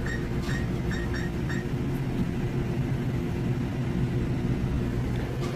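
Steady machine hum with several fixed low pitches, and a few short high chirps in the first second and a half.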